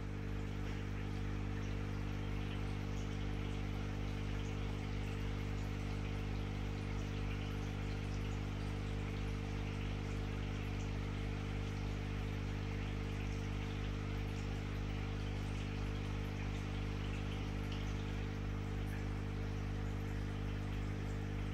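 A steady low electrical hum made of several even tones, with a fine fizzing hiss over it, unchanging throughout.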